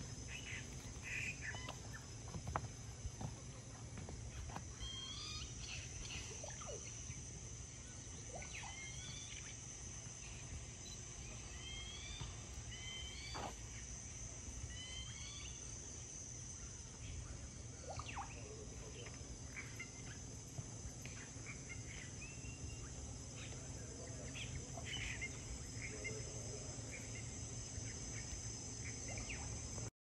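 Amazon rainforest ambience: a steady high-pitched insect drone under scattered bird calls, including short rising chirped phrases repeated several times and fowl-like calls.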